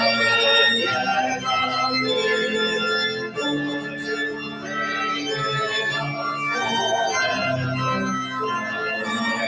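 Church organ playing slow, sustained chords, the notes held and changing every second or two, as music before the service begins.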